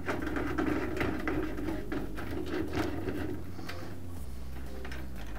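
Screwdriver backing a screw out of a plastic fan grill: small scraping and clicking while it turns, stopping about three and a half seconds in, with a low steady hum beneath.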